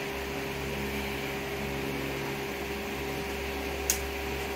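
Steady mechanical hum with one short, sharp click near the end.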